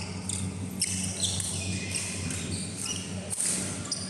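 Badminton rally: a shuttlecock struck by rackets with several sharp hits, over short squeaks of court shoes on the floor and a steady low hum.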